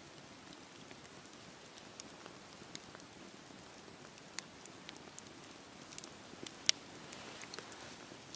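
Campfire burning with a soft steady hiss and scattered sharp crackles and pops at irregular intervals; the loudest pop comes about two-thirds of the way through.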